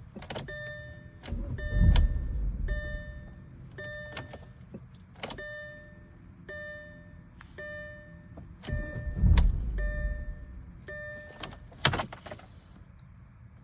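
Dashboard warning chime of a 2008 Audi A4 B7 2.0T ringing repeatedly, about one chime every two-thirds of a second, after the engine has stalled at idle. Twice the engine is cranked to restart it, a loud low rumble of about a second each near 2 s and 9 s, with keys jangling and a sharp click near the end.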